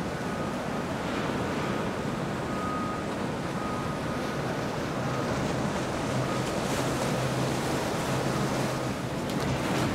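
Motorboat engine running under steady water rush and wind noise on the microphone, the engine hum growing a little louder about halfway through.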